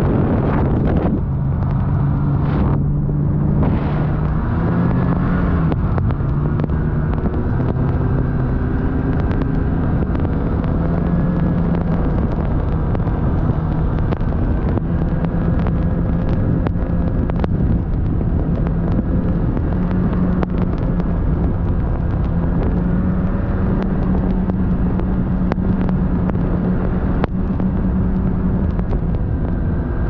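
Motor vehicle driving on a snow-covered road: a steady engine hum over low road and wind rumble, the engine note stepping up and down a few times in the first ten seconds, then holding steady.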